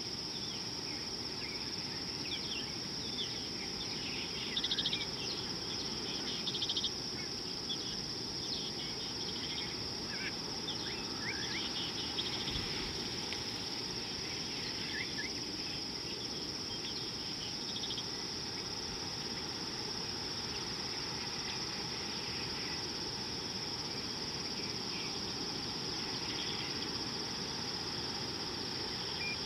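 Steady high-pitched insect chorus droning without a break, with scattered short bird chirps in the first half, over a low background hiss.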